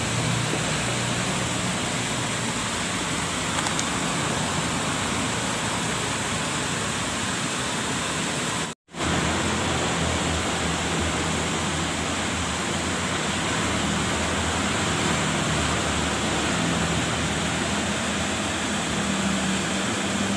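Steady rushing of a small stream's water tumbling over rocks. It cuts out for a moment about nine seconds in, then carries on unchanged.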